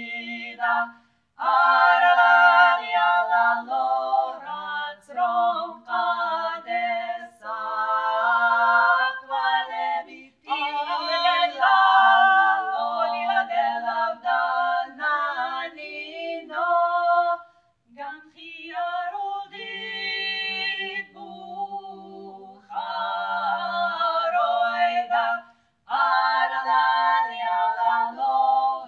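Several voices singing a folk song a cappella in harmony, in sung phrases separated by short breaks.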